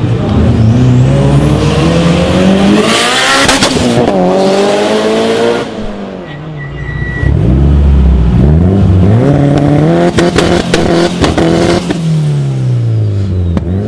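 Modified car engine revved hard twice, its pitch climbing and then dropping back each time. A quick string of sharp exhaust cracks comes near the top of the second rev.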